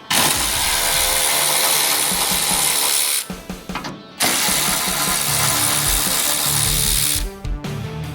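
Handheld power tool running in two steady bursts of about three seconds each with a short break between, backing out fender bolts. Background music with guitar plays underneath.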